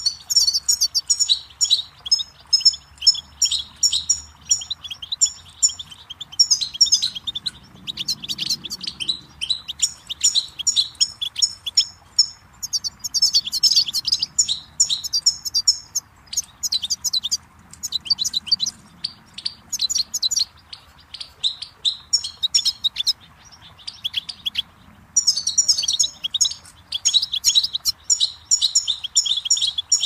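European goldfinch singing: long, fast twittering phrases of rapid, repeated high notes, broken by short pauses and sparser about two-thirds of the way through. A faint steady rush of running water lies underneath.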